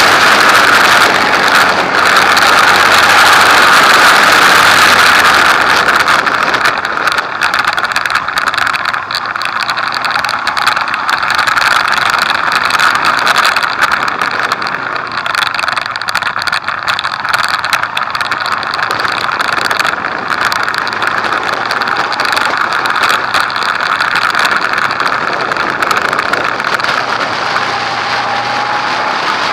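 Motorcycle riding at speed, heard from a camera mounted at its instrument cluster: wind rushing over the microphone with the engine running underneath, louder in the first few seconds. Near the end the engine pitch rises briefly.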